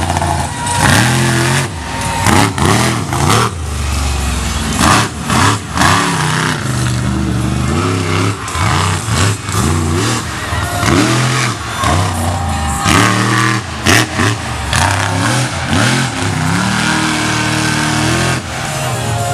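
Monster truck engine revving hard over and over, its pitch climbing and dropping about once a second, with several sudden bangs among the revs.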